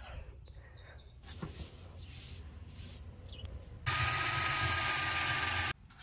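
Faint handling noises, then a loud steady hiss with a thin whistle-like tone running through it, about two seconds long and cut off suddenly near the end.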